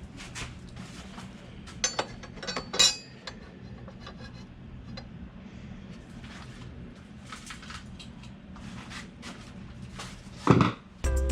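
Small metal tools and parts clinking and rubbing during hands-on motorcycle work, with two sharp ringing clinks about two and three seconds in and a louder knock near the end.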